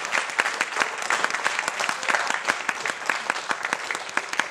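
Audience applauding, a dense patter of many hands clapping that slowly thins out toward the end.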